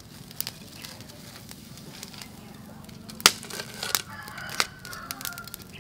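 Metal tongs clicking and scraping against a wire grill rack over a charcoal stove as salt-crusted grilled fish is lifted off, with one sharp clack about three seconds in. A rooster crows faintly in the second half.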